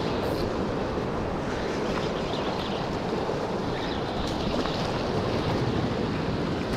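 Ocean surf washing against a rock ledge, a steady rushing noise, with wind on the microphone.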